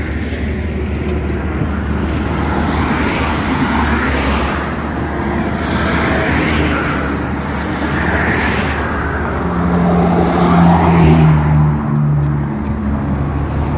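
Toll-road traffic passing by one vehicle after another, each a swell of tyre and engine noise, over a steady low engine hum; a heavier vehicle with a deep engine note passes, loudest, about ten seconds in.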